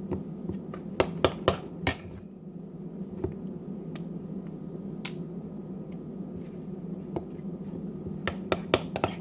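A utensil clicking against a bowl while mixing the food colouring into the glue and shaving-foam slime base: a few sharp clicks in the first two seconds, sparse taps after, and a quicker run of clicks near the end.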